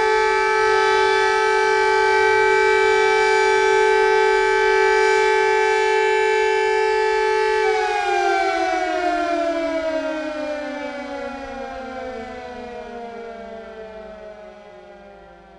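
Civil defense siren sounding a loud steady tone, then winding down about halfway through, its pitch falling as it fades away.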